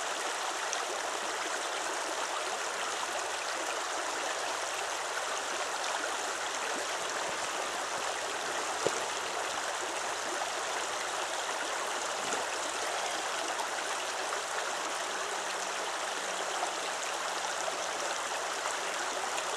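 Shallow river running over a rocky bed: a steady rush of flowing water, with one small click about nine seconds in.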